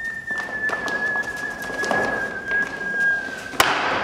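A long, steady whistled note, sinking slightly in pitch, held until a sharp crack cuts it off about three and a half seconds in, with light knocks and shuffling underneath.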